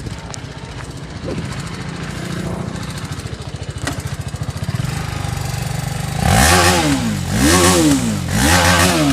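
TVS Apache RR310's single-cylinder engine, with its stock unmodified exhaust, idling with a steady beat, then revved in three quick throttle blips about six seconds in, each rising and falling in pitch.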